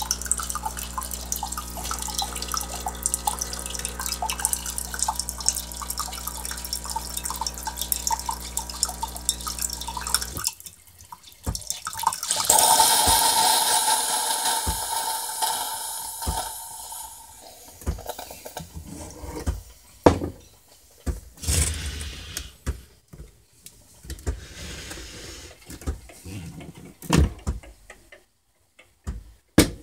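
Bosch single-serve pod brewer's pump humming steadily as hot water streams into a ceramic mug; the flow stops suddenly about ten seconds in. A couple of seconds later steam hisses loudly out of the machine and fades, followed by scattered clicks and knocks as the machine is handled.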